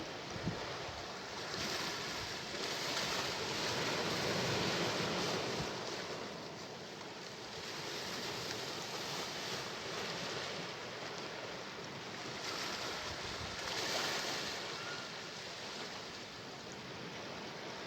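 Sea waves breaking and washing ashore, the surf noise swelling and easing every few seconds.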